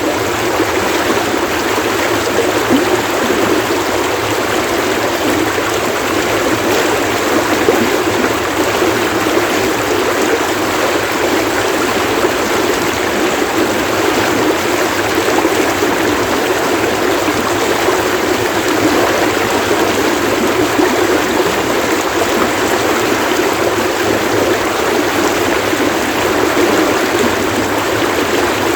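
Running water splashing steadily over stones, a continuous rushing, babbling flow.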